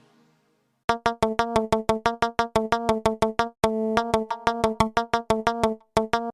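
Electronic organ playing a rapid run of short, repeated staccato notes on one pitch, about six a second. The notes start about a second in, pause briefly near the end, then two last quick notes follow.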